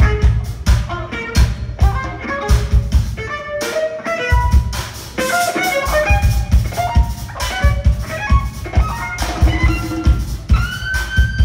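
Live jazz-fusion band playing, with drum kit and bass under a fast violin solo of quick runs, sliding into long notes near the end.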